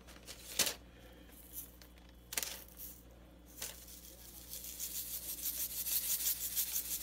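A small jar of yellow nonpareil sprinkles shaken in rapid repeated strokes, the tiny sugar balls rattling, starting about four seconds in and growing louder. Before that, a couple of brief rustles.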